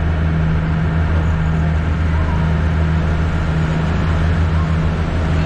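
A small river water bus cruising at a steady speed: its engine gives a constant low drone, over the even rush of water along the hull.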